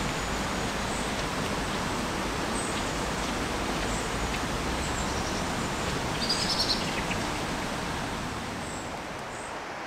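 Steady rushing of a small river flowing, with small birds chirping now and then and a brief burst of bird song about six seconds in.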